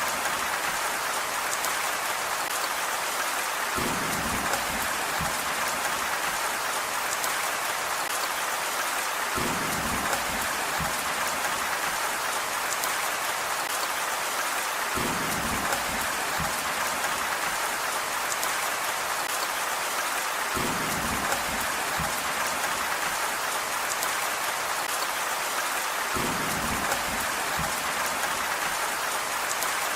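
Steady rain falling, an even hiss of drops on surfaces. A short low rumble comes back about every five and a half seconds.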